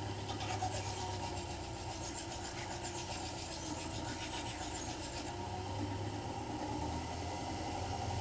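Ez-Vex scissor-sharpening machine's motor running steadily as a long curved grooming shear is polished on its wheel. A faint high rubbing of the blade edge against the wheel comes through for the first five seconds or so.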